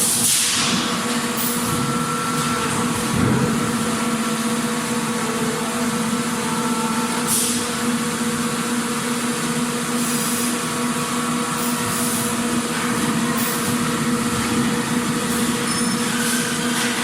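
Factory machinery running with a steady drone and hum, broken every few seconds by short hisses and a single knock about three seconds in.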